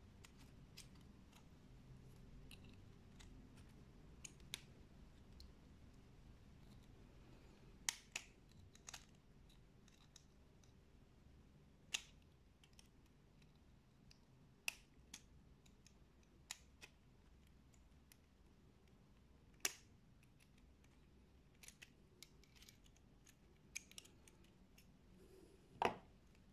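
Faint, scattered metal clicks and ticks of a screwdriver and a lock disassembly tool prying a steel retaining clip off a Regal cylinder lock. About a dozen sharp clicks come at irregular intervals over near-silent room tone, the loudest near the end.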